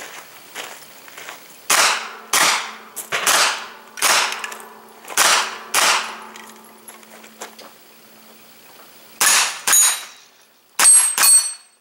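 Pistol-caliber carbine firing about ten shots in irregular groups of one or two, with a longer pause before the last few. The last shots are followed by the ringing of struck steel targets.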